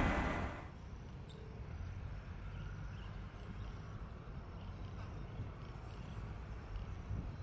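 Jet noise from a departing Airbus A320 airliner fades out within the first second. It leaves quiet ambience: a steady low rumble and faint, repeated high chirping of insects.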